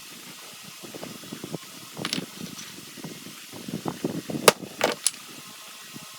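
Metal parts being handled: a drill chuck being set into a lathe chuck, giving scattered light knocks and clicks, with the sharpest click about four and a half seconds in.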